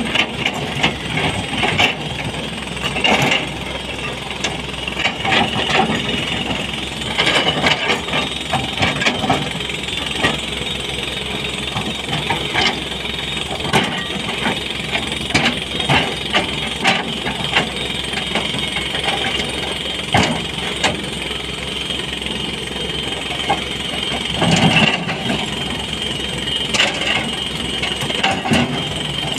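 SANY SY220C hydraulic excavator's diesel engine running under load, with irregular clanks and scrapes as the steel bucket digs into rocky earth and stone.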